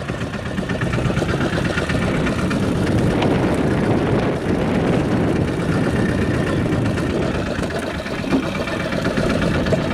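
Fishing boat's engine idling steadily.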